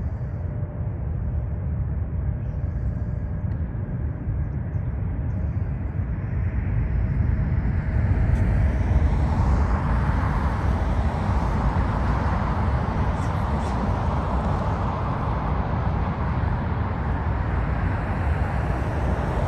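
Jet engines of a Boeing 777 airliner, a steady deep rumble that grows louder about eight seconds in as the aircraft passes, with a faint whine that drops in pitch.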